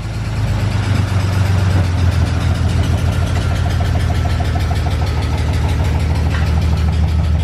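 BMW E46 engine idling steadily with a rapid ticking knock from the engine. The owners hope the ticking will fade once oil pressure builds, and fear bottom-end damage such as a spun bearing.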